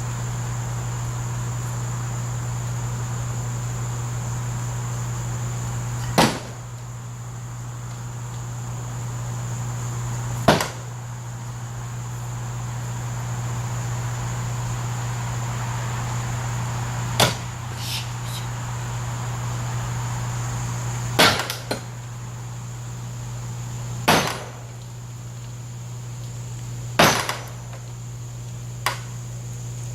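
An axe striking a swing set, six sharp chopping blows several seconds apart with a smaller knock near the end. A steady high-pitched insect drone and a low hum run behind them.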